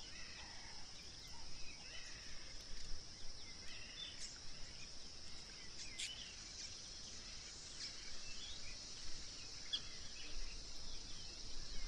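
Outdoor bush ambience: a steady, high-pitched insect drone with scattered short bird chirps and calls over it.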